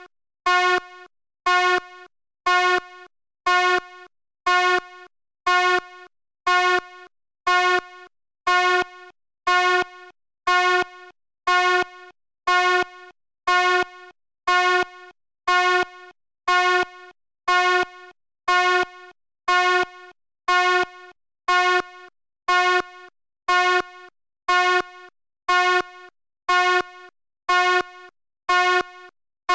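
Fire alarm horn sounding in a steady repeating pattern of short, buzzy blasts, a little faster than one a second, each loud at the start and then dropping to a quieter tail.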